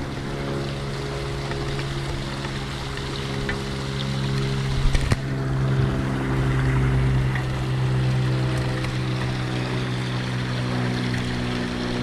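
A steady low machine hum, a motor running without pause, with a few sharp knocks about five seconds in as a mourning dove lands on the wooden feeder tray.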